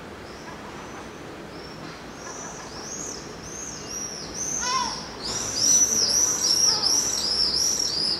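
Juvenile gulls begging with a run of thin, high whistles, each rising and falling, about three a second, growing louder about halfway through. One quick falling call about five seconds in.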